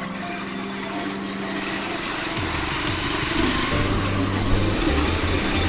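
Motorcycle engine running on the move through city traffic, with road and wind noise. A lower engine drone comes in about two and a half seconds in, and the whole grows louder toward the end.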